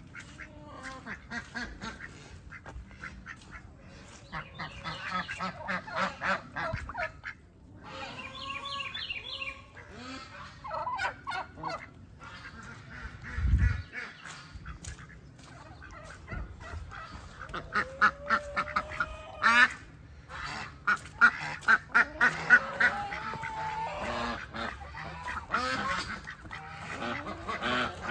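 Farmyard ducks and geese calling, many short calls in quick runs that grow busier in the second half. There is a single low bump about halfway through.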